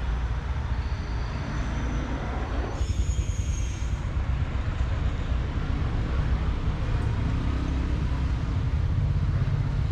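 Road traffic: a low engine rumble from passing vehicles, with a brief high squeal about three seconds in.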